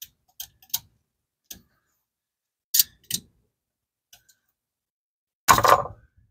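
Rubber coolant hose being trimmed with a hand cutting tool: a run of short clicks and snips, then the loudest sound near the end, a rough scrape of about half a second as the cut piece comes free.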